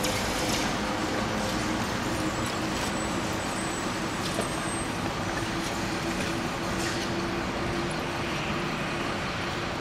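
Street traffic with an articulated trolleybus running on the road: a steady wash of road noise with a faint steady tone running through it.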